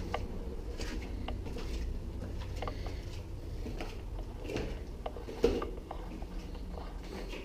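Footsteps walking through the castle: light, irregular taps, with one louder knock about five and a half seconds in.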